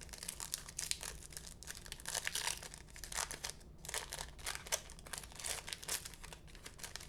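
Crinkling and rustling of a trading-card pack's foil wrapper being handled, with quick irregular crackles throughout.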